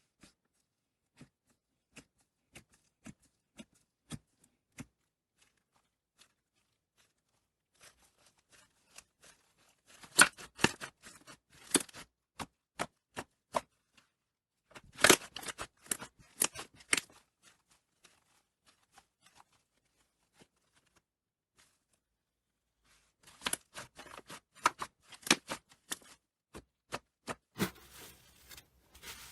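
Slime being handled, making sharp clicks and crackles. The clicks are scattered and soft at first, then come in three bursts of rapid, louder clicking.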